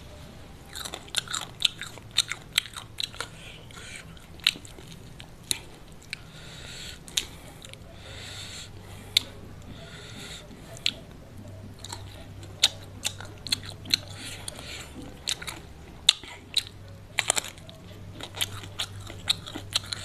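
Close-miked crunching and chewing of crispy fried chicken coating dipped in raw chili sambal, with many irregular sharp crisp crunches, over a faint steady low hum.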